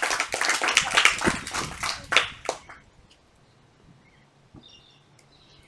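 Applause from a small audience of seated schoolchildren, dying away about two and a half seconds in. Then near quiet with a few faint high chirps.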